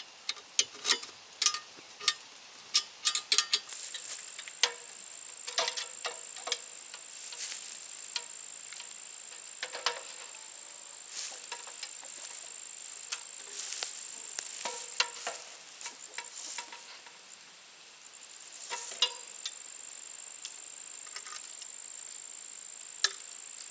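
A run of sharp metal clicks and taps from tightening and handling a light's mounting bracket in the first few seconds. After that a thin, steady high-pitched whine holds throughout, under scattered rustling and knocks from handling the light on the ladder.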